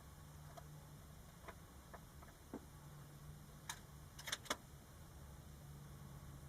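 A few faint, sharp clicks scattered over a low steady hum, ending in a quick cluster of three louder clicks about four seconds in.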